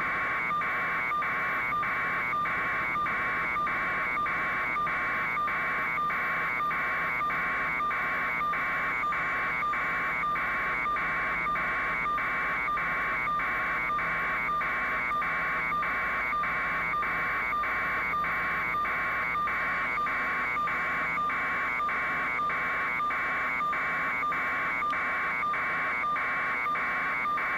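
Continuous electronic buzz pulsing evenly about twice a second, the steady background noise on a news helicopter's audio feed.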